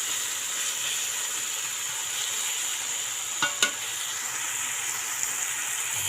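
Chopped onion, tomato, potato and coriander leaves frying in hot oil in a pan, a steady sizzling hiss, with two short knocks about three and a half seconds in.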